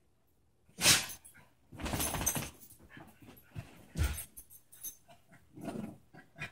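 Two dogs play-fighting: a handful of short, irregular dog vocal sounds and barks mixed with scuffling, the loudest about a second in.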